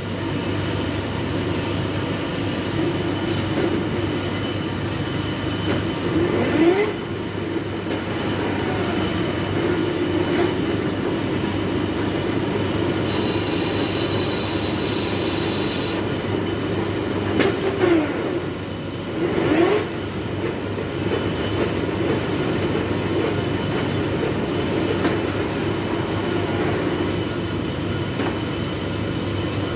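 Large metal lathe running steadily while turning a heavy iron workpiece, with short squeals that sweep in pitch, one about a quarter of the way in and two close together past the middle. A high thin whine sounds for about three seconds just before the middle.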